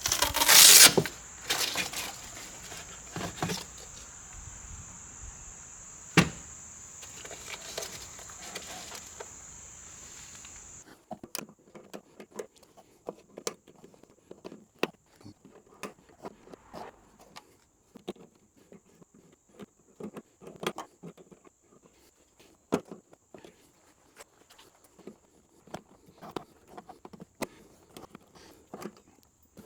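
Hand work on car trim and wiring: scattered clicks, taps and rustles, with a loud rustle about a second in and a sharp click a few seconds later. A faint high steady whine stops about a third of the way through.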